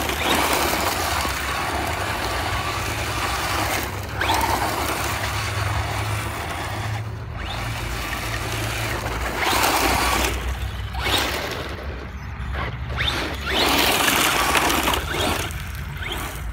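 Traxxas Slash 4x4 RC short-course truck on a 2S LiPo being driven hard on loose gravel: its electric motor and geared drivetrain whine in surges with the throttle while the tyres scrabble and spray grit. It goes in several loud bursts with short lulls between them.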